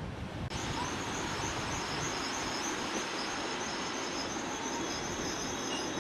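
Passenger train running, heard from an open carriage window: a steady rush and rumble of the moving train. About half a second in the sound changes suddenly and a high, pulsing chirp joins it.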